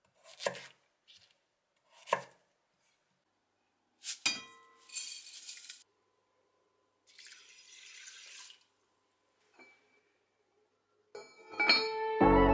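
A chef's knife cutting through potato onto a wooden chopping board, two strokes. A ringing clink and two short rushing noises follow, then clinks as the lid is set on a Staub cast-iron pot, and guitar background music comes in loudly near the end.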